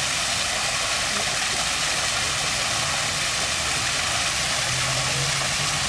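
Stream water running over rocks, a steady even rush. A faint low hum joins briefly near the end.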